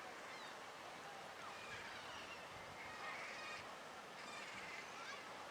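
Faint bird calls, many short chirps and squawks, busiest midway, over a steady background hiss.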